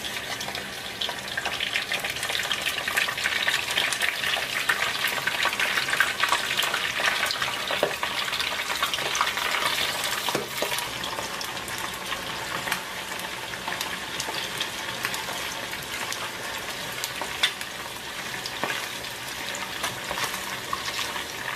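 Raw chicken pieces frying in hot oil in a frying pan: a steady sizzle full of crackling pops. It grows louder over the first few seconds as more pieces go into the oil, then settles.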